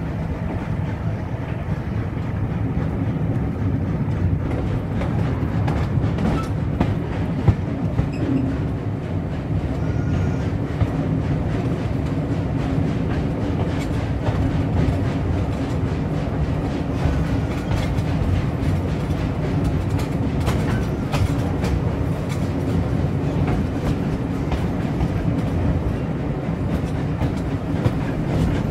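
Steam-hauled passenger train running along the line, heard from an open coach window: a steady rumble of the carriage wheels on the track with scattered clicks as they pass over rail joints.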